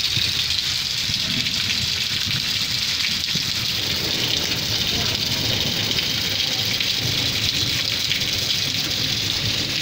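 Rain falling steadily: an even, unbroken hiss of drops on surfaces.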